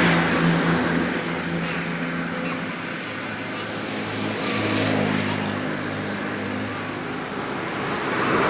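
Motorcycle engine idling steadily, with street traffic passing that swells about halfway through and again near the end.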